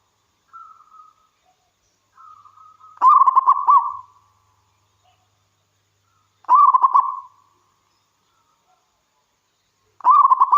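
Zebra dove (perkutut) cooing: soft lead-in notes, then three loud phrases of quick stuttering coos a few seconds apart.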